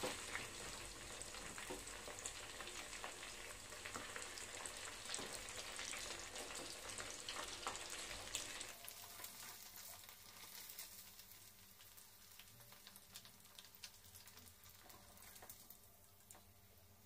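Chicken 65 pieces deep-frying in hot oil in a small pan, a dense crackling sizzle with a few clicks of a slotted spoon against the pan. About nine seconds in the sizzle drops to a much quieter, thinner crackle with small ticks.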